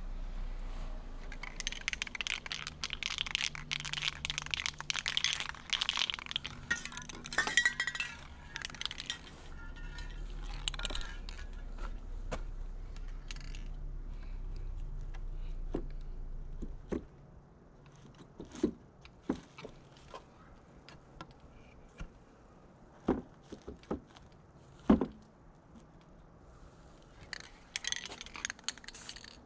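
Aerosol spray-paint can hissing in bursts for the first several seconds, then a run of scattered clicks and knocks as the wooden board is handled, and the can hissing again near the end.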